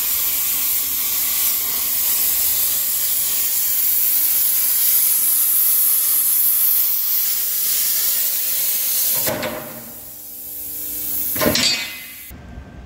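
A cutting torch hissing steadily as it cuts through 8 mm high-tensile wear plate. The hiss falls away about nine seconds in, then there is a short burst of hiss near the end before the sound cuts off.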